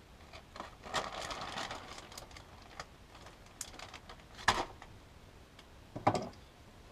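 Food-prep handling sounds at a small counter: a plastic zip-top bag crinkles as vegetables are handled over a bowl, with small clicks of things being moved. Two sharp knocks of kitchen items set down or picked up on the counter stand out, about a second and a half apart near the end.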